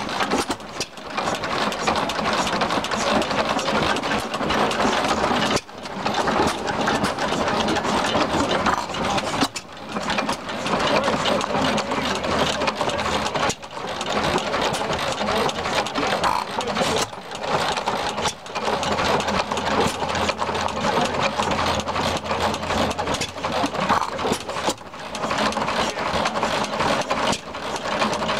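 Antique Northwestern hopper-cooled stationary gas engine running, a fast, steady mechanical clatter that dips briefly every few seconds.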